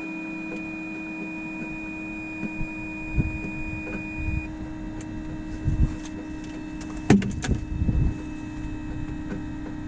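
Steady engine hum heard inside a light aircraft's cabin, with a thin high tone that stops about halfway through. Several knocks and rattles come in the second half, the loudest about seven seconds in.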